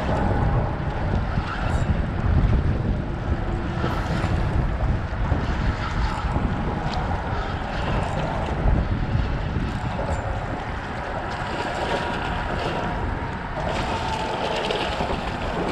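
Wind buffeting the microphone over water lapping at the rocks, while a spinning reel is cranked against a hooked snook. Near the end the fish thrashes at the surface, splashing.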